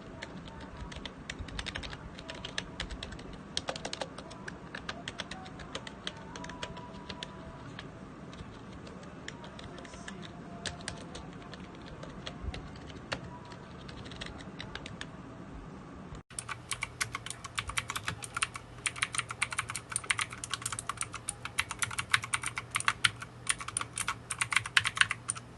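Typing on an ordinary non-mechanical gaming keyboard, muted keystrokes. About two-thirds through, it cuts to fast typing on an Armageddon MK11R mechanical keyboard, whose keystrokes are louder and sharper clicks.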